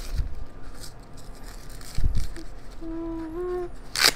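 Handling noise from strapping a wrist guard onto a child's hand: two low thumps, the second about two seconds in, a short hum that steps up in pitch about three seconds in, and a sharp snap near the end.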